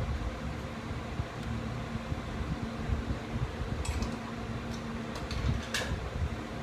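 Steady hum of a fan running, with a few light clicks between about four and six seconds in as battery terminal hardware is handled.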